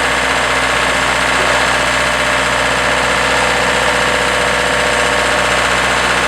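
Diesel engine of a DIECI L3500 self-loading concrete mixer running steadily at an even speed.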